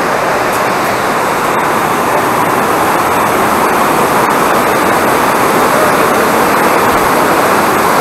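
Waterfall and fast mountain stream rushing steadily, an even wash of water noise.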